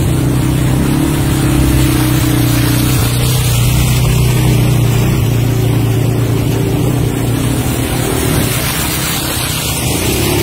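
Quad bike (ATV) engine running and revving as it drives through a muddy puddle, with water splashing up from the wheels.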